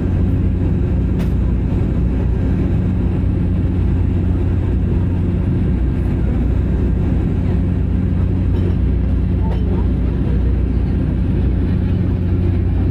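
Steady low drone of a vehicle's engine, holding an even pitch with no revving.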